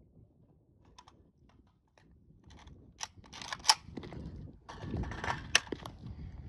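Sharp metallic clicks and clatter from handling an AK-pattern rifle and its rounds, a few separate clicks with the two loudest about two seconds apart, over rustling.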